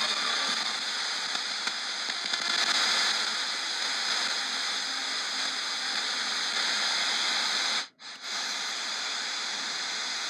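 Eton E10 portable radio's speaker giving out a steady hiss of FM static, with no station coming in, while it is fine-tuned in 0.01 MHz steps around 104.4 to 104.7 MHz. The hiss cuts out for a moment about eight seconds in.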